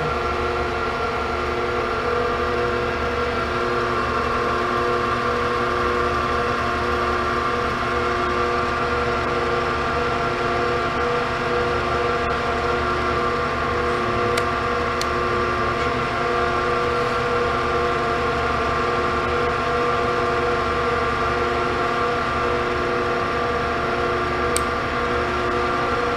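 Hardinge HLV-H toolroom lathe running under power at a steady spindle speed: a constant mechanical whine of several pitches from its motor and headstock drive, with a few faint ticks.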